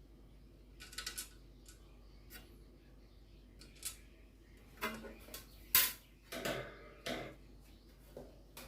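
Fan parts being handled and fitted together during assembly: a string of irregular clicks, knocks and clatter, busiest and loudest about five to seven seconds in.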